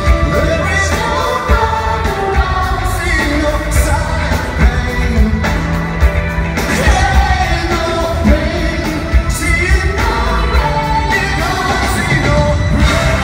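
Live rock band playing, with a man singing lead into a microphone over drums and keyboards.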